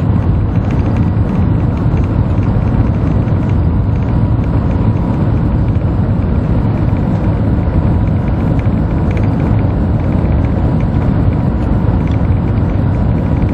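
Shanghai Maglev, a Transrapid magnetic-levitation train, running at cruising speed: a steady low rumble with a faint steady tone above it.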